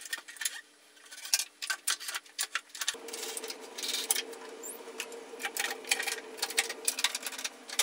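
Irregular clicks and wooden knocks from a plywood flip-top tool cart worked by hand, as its side locking knobs are turned and the top is flipped over. A steady low hum runs beneath and grows louder about three seconds in.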